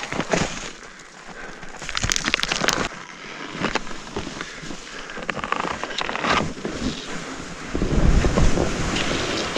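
Skis sliding and scraping over wind-rippled, crusty snow, with scattered clicks and chatter. Wind buffets the microphone with a loud low rumble near the end.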